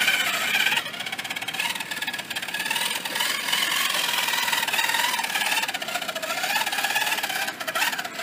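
Electric motor and gear drive of a scale RC truck whining, the pitch rising and falling with the throttle as the truck crawls over rock.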